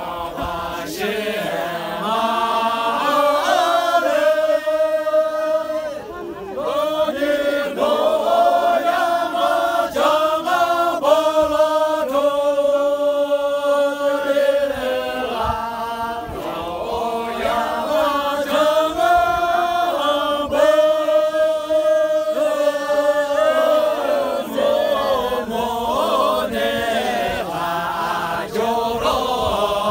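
A group of men singing a chant-like song together in unison, in long drawn-out phrases with a short break about six seconds in.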